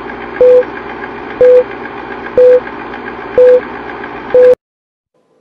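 Film-leader countdown sound effect: a steady film-projector rattle with a short beep once a second, five beeps in all. The sound cuts off suddenly just after the last beep.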